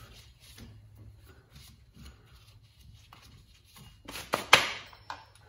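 Faint rubbing and scraping on a C5 Corvette's bare front wheel hub as its face is cleaned of rust and debris so the new rotor will sit flat, with a few sharper, louder scrapes about four seconds in.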